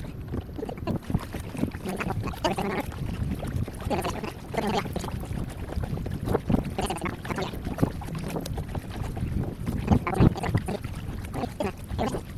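Kayak paddle strokes dipping and swishing through the water, a stroke every second or two, with wind rumbling on the microphone.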